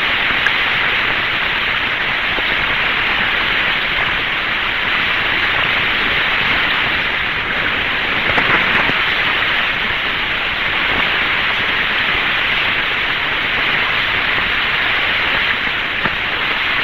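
Steady hiss of radio static on an open air-to-ground radio channel, with a slight swell about eight seconds in.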